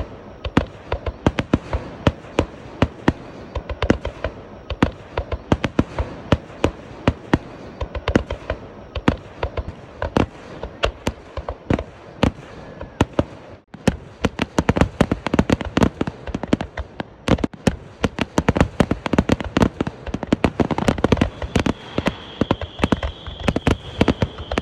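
Aerial fireworks going off in rapid succession, many sharp bangs and crackles one after another. The sound drops out briefly about halfway through, then the bangs come thicker and faster, with a steady high whistle joining in near the end.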